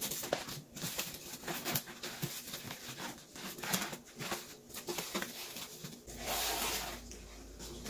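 Gloved hands rustling through dry dead coleus leaves and debris on potting soil, with irregular crackles and rubs as the litter is picked off. A denser stretch of rustling comes about six seconds in.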